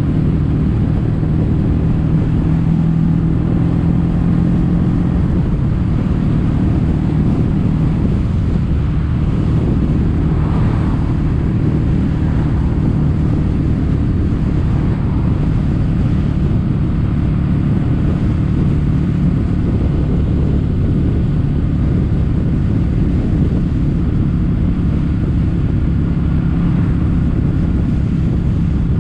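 Kawasaki W800's air-cooled parallel-twin engine running at a steady pace through Daiwa stainless-steel Caberton-style silencers, with wind buffeting the microphone.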